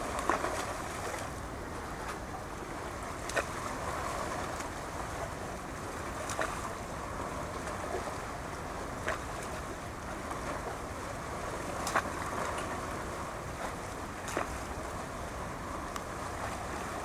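Small waves washing against the shore, a steady wash broken by sharp little splashes every few seconds.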